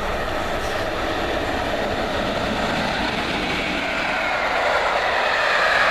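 Freight train of tank wagons passing through at speed: the steady noise of wheels rolling on the rails, growing louder toward the end.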